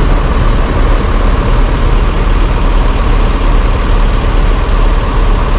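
Diesel engine of a Mercedes-Benz coach idling steadily and loudly, a constant low rumble.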